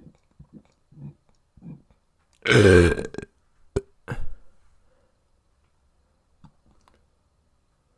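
A person burps once, loudly, about two and a half seconds in: a long, deep burp whose pitch drops. A sharp click and a shorter, smaller sound follow about a second later, and faint small sounds come before it.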